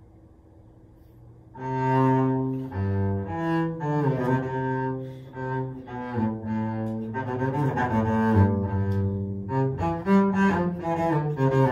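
Double bass bowed (arco), coming in about a second and a half in after near silence. It plays a run of separate sustained notes, then quicker moving passages near the end.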